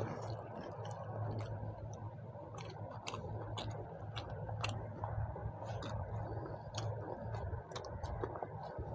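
Chewing and eating sounds from people eating chicken curry and rice with raw onion: irregular small clicks and smacks, over a steady low hum.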